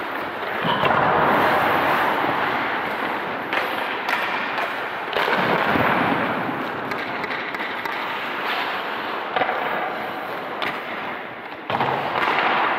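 Ice-skate blades scraping and carving on rink ice, in swells of hiss that jump up sharply about a second in, around five seconds in and near the end, with scattered knocks of sticks and pucks echoing through the arena.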